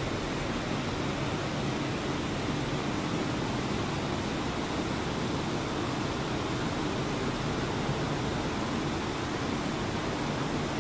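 Steady, even rushing hiss with no breaks or changes.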